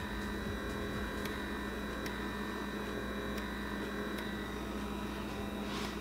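ABsuper rechargeable blackhead vacuum running with its nozzle on the skin of the nose: a steady electric hum from its small suction pump as it draws out blackheads and excess oil, with a few faint clicks.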